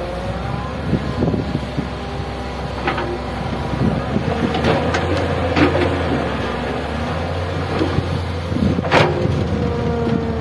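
Excavator working: a steady diesel engine drone under a whine that rises and falls, with scattered metal clanks and knocks, the sharpest about nine seconds in.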